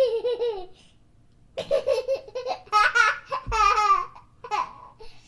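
A young child laughing in bouts: a short laugh at the start, a longer run of high, fluttering laughter in the middle, and a brief laugh near the end.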